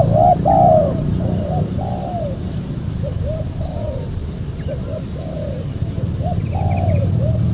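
Spotted dove cooing: a run of short, arching coo notes, some overlapping as if from more than one bird, over a steady low hum.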